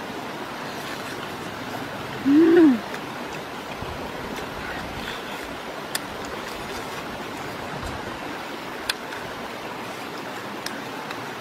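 A woman hums one loud, closed-mouth "mmm" that rises and then falls in pitch, about two and a half seconds in, while eating. Under it runs a steady rushing noise, with a couple of faint clicks.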